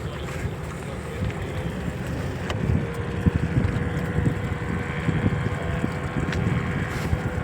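Motorboat engine running steadily with a constant hum, under wind buffeting the microphone that gets gustier a few seconds in.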